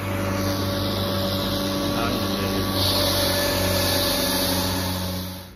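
A small gas engine running steadily at high speed: an even drone with a loud rushing hiss over it, fading out about five seconds in.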